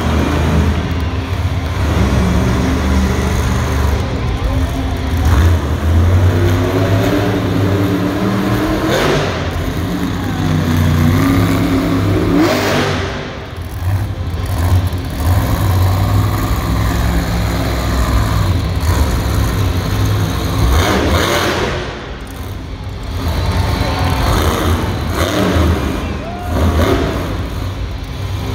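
Monster truck's supercharged V8 revving hard and running under heavy throttle, its pitch climbing and falling again and again, with two short easings of the throttle along the way.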